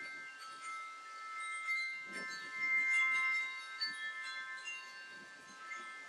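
Metal wind chimes ringing in gusty wind, several long notes overlapping, loudest about halfway through, over a low rumble of wind.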